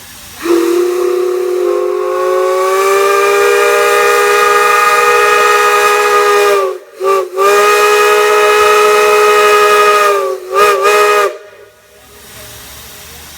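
Multi-note chime whistle blowing a chord. A long blast of about six seconds is followed by a quick double toot, then a second long blast of about three seconds and two more quick toots, and it cuts off about eleven seconds in.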